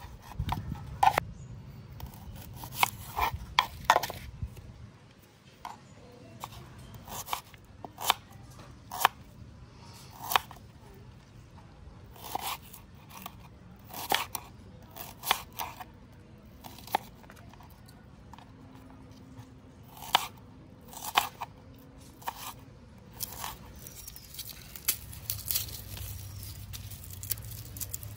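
Kitchen knife cutting red onion on a wooden chopping board: irregular sharp knocks of the blade striking the board, often about a second apart and sometimes two or three in quick succession.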